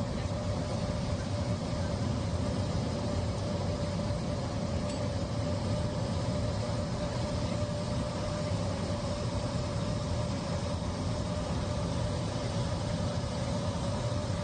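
Airliner cabin noise in flight: a steady drone of engines and airflow with a constant humming tone running through it.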